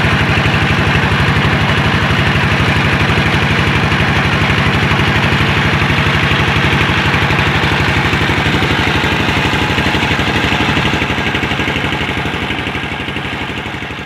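An engine running steadily with an even, fast pulse, fading away near the end.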